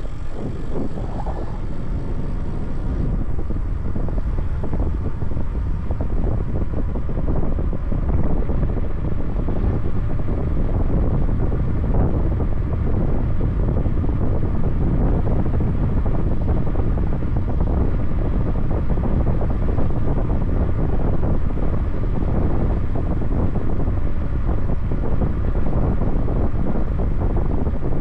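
Wind rumbling steadily on the microphone of a camera riding on a moving e-bike.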